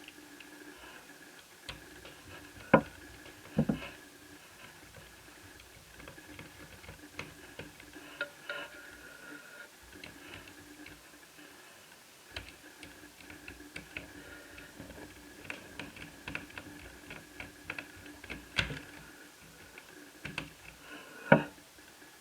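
Scattered small clicks and ticks of a screwdriver taking out the screws under the keyboard of an Asus Eee PC 1001P netbook, with a few sharper, louder clicks, over a faint steady hum.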